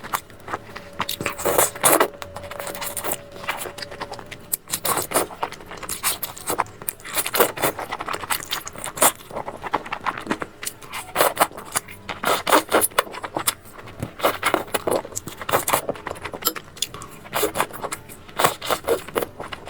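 Mukbang eating sounds: irregular, rapid clicks and crackles of chewing and mouth noise. A faint steady tone hums under them for the first few seconds.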